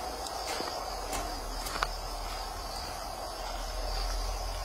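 Insects in the field trilling steadily, with a steady low rumble underneath and a few faint clicks.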